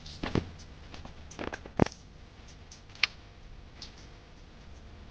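A handful of sharp clicks and taps from hand work on car stereo harness wiring, with the loudest click just under two seconds in and another about three seconds in.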